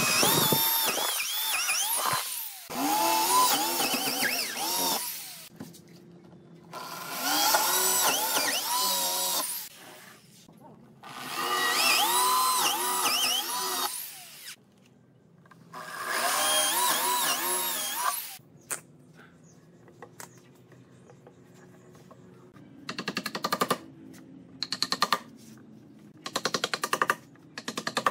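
Electric drill boring holes into pine timber in about five bursts of a few seconds each, the motor pitch sagging and rising as the bit bites and frees. Near the end come quicker runs of sharp, rapid rattling taps.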